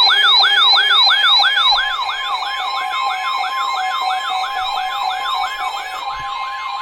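Electronic siren alert sounding a fast yelp: repeated falling sweeps in pitch, about three a second, over a steady tone.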